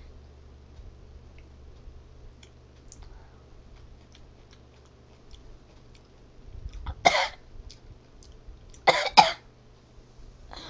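A girl coughs hard, once about seven seconds in and then twice in quick succession about two seconds later, while eating hot jalapeño peppers. Faint small clicks come before.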